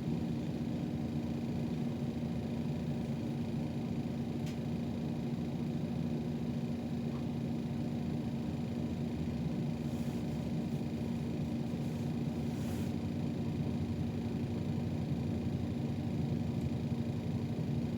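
City bus driving, heard from inside the cabin: a steady low engine and road rumble with a constant hum, and a few faint high hisses around the middle.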